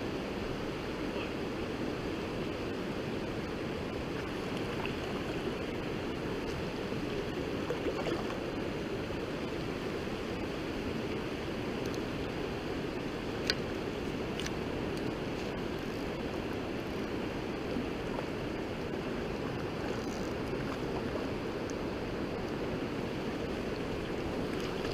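Steady rush of the Shavers Fork river's flowing water, a mountain trout stream, with a sharp click about halfway through.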